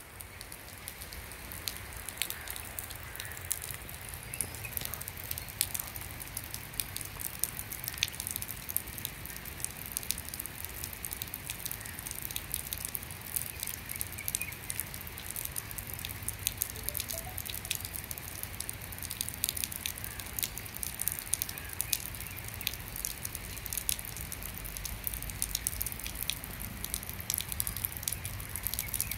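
Steady rain: a hiss sprinkled with many sharp ticks of single drops.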